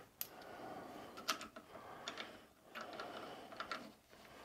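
Faint scattered clicks and small knocks from a fibre gear and its nut being handled on a keyed lathe adapter.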